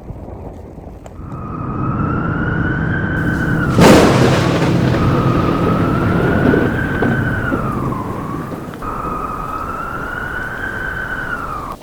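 Wolf howling in one long, wavering call that dips and breaks briefly near the end, over steady wind noise, with a sudden loud crash about four seconds in.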